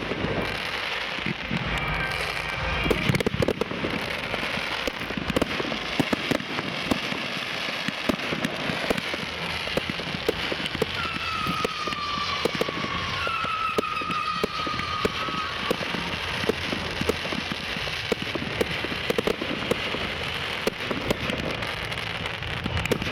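Fireworks display shells bursting: dense crackling and popping throughout. A high whistling tone comes in about halfway through and lasts a few seconds.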